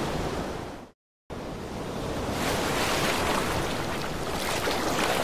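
A song fades out, then a brief moment of total silence, then a steady rushing noise without voices or tune that swells a little.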